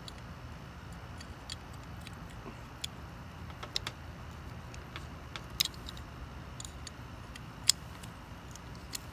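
Scattered small metallic clicks and ticks as Tsunami 7.5-inch aluminum fishing pliers are handled while the loose handle spring is worked back into place, with the sharpest clicks about five and a half and seven and a half seconds in.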